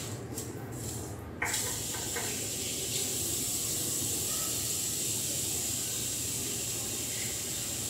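Bathroom sink tap turned on, water running in a steady hiss into the basin, starting suddenly about a second and a half in.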